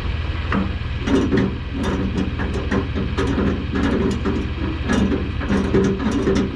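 An engine idling steadily, with irregular clanks and knocks starting about half a second in.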